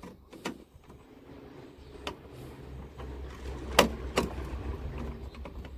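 Metal clicks and knocks from a VW T5 Transporter's door handle mechanism being worked with a bent metal pick, the loudest sharp click near the middle followed by another, over a low rumble.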